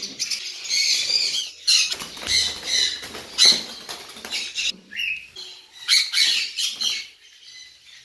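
Parrots squawking and screeching in a run of repeated shrill calls.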